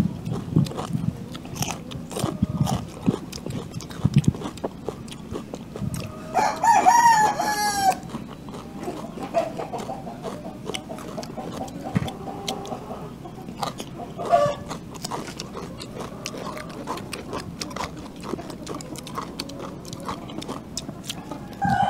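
Close-up chewing of raw vegetables with small crunching clicks. A rooster crows once, loudly, about six seconds in, and there are fainter bird calls later.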